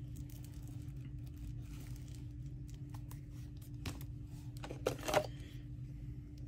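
Paper being handled: faint rustles and small ticks, with a short louder rustle about four seconds in and a louder cluster of rustling just after five seconds, over a steady low hum.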